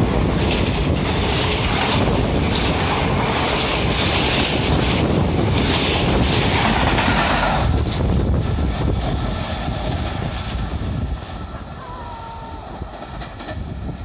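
Express train coaches rushing past at full speed with wheels clattering over the rails; about eight seconds in the noise drops sharply as the last coach goes by, then fades away over the next few seconds.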